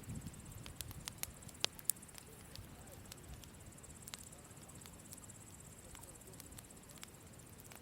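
Wood campfire crackling: irregular sharp pops and snaps of burning wood, a few loud ones in the first two seconds, over a low rumble of flames at the start. A steady high chirring of crickets runs underneath.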